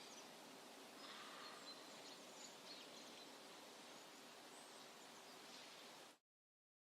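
Near silence: faint outdoor ambience, cutting off to total silence about six seconds in.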